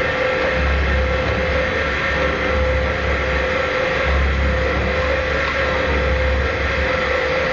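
Industrial sigma mixer running under load, its blades kneading a thick paste in the trough: a steady motor and gear hum with a higher whine, and a deep throb that swells and fades every second or two as the blades work through the mass.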